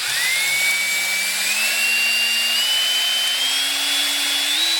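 Electric drill running steadily while pre-drilling an 1/8 inch pilot hole through a dryer duct and its new transition collar for rivets. The motor's whine climbs slowly in pitch as it runs.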